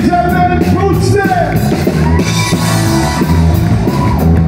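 Live band playing an upbeat song with a steady drum beat, a singer's voice carrying the melody over it.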